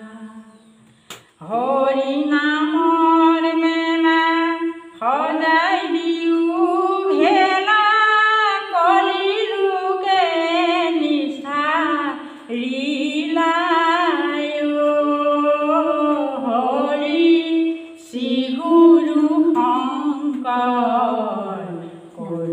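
A woman singing an Assamese folk song unaccompanied, in long phrases with pitch that bends and wavers, and short breaths between them. The song starts after a brief pause about a second in.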